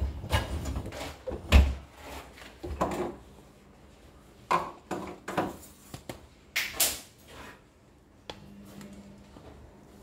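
Loaded wire dish rack of a Bosch dishwasher being pushed in on its rails, with a string of metal clunks and knocks, the heaviest about a second and a half in, and a short scrape near the end.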